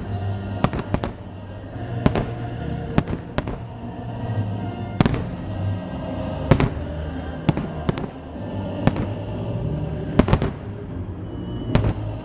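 Fireworks bursting overhead: sharp bangs at irregular intervals, roughly one a second, over music playing underneath.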